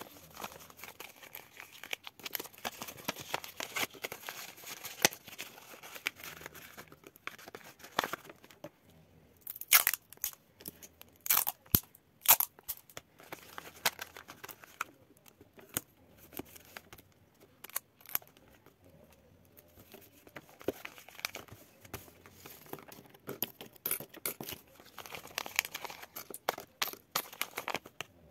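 Paper savings envelopes being handled and filled with money: irregular rustling and crinkling of paper, with a few sharper clicks, the loudest about ten to thirteen seconds in.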